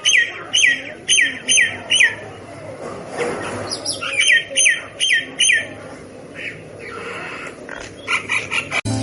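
Hill myna giving a loud, falling whistled call over and over, about two calls a second in runs of about five, with short pauses between runs. A sharp click comes just before the end.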